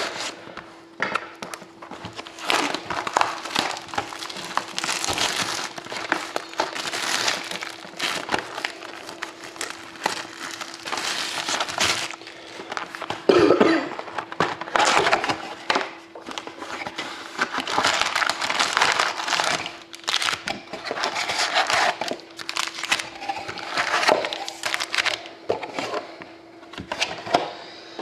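Plastic shrink wrap and packaging crinkling and crackling in irregular bursts as a sealed hockey card box is torn open and its wrapped card packs are pulled out and handled.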